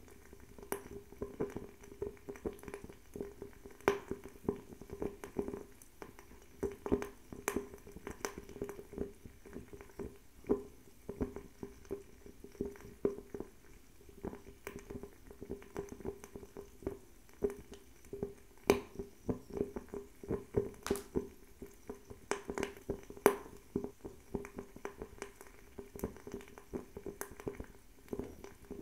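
Bio-ethanol table fireplace burning: a steady low flame flutter under irregular sharp crackles and pops, several a second, a few of them louder than the rest.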